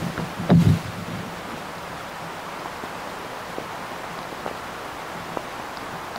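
Recording from a microphone lowered down a borehole: a steady hiss, with a cluster of dull thumps about half a second in and a few faint ticks later. The uploader takes these knocks for underground tunnel-digging work.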